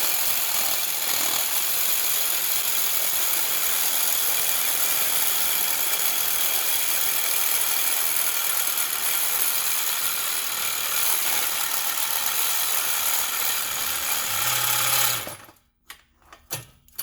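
DeWalt cordless reciprocating saw (sawzall) cutting through a steel exhaust pipe, running steadily and then stopping suddenly about 15 seconds in as its battery dies, followed by a few faint clicks.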